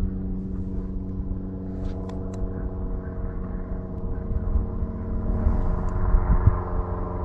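A small boat motor running at a steady pitch, with gusty wind rumble on the microphone and a few light clicks about two seconds in.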